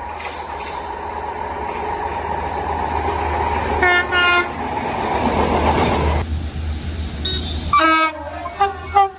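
Train rumble growing steadily louder, with two short train horn blasts about four seconds in. The sound cuts off suddenly, then several more short train horn blasts follow near the end.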